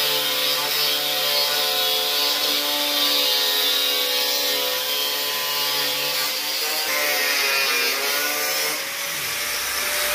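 Handheld angle grinder running steadily with a high whine and hiss as it cuts a slot along a PVC rain pipe. Its pitch dips and recovers about eight seconds in.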